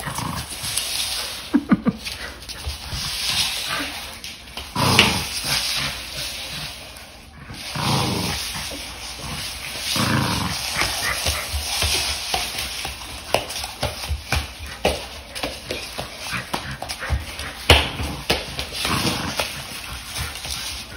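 Small dog's play noises while tugging on a rope toy: short barks and whines in bursts every few seconds.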